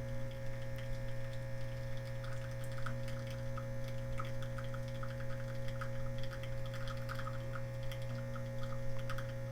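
Nespresso Expert capsule machine brewing, its pump humming steadily, with faint irregular ticking from about two seconds in.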